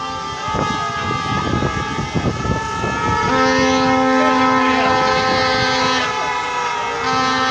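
Several horns blown by a marching protest crowd, held in long steady blasts at different pitches that overlap; a lower horn starts about three seconds in, stops about six seconds in and starts again near the end. Crowd noise of many people walking and calling runs underneath.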